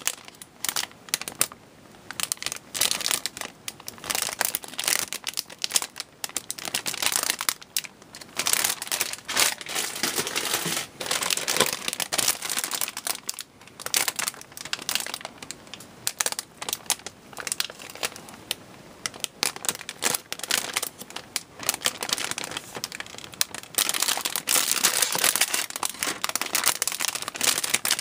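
Thin clear plastic bags around plastic model-kit runners crinkling in irregular bursts as the bagged runners are handled and turned over.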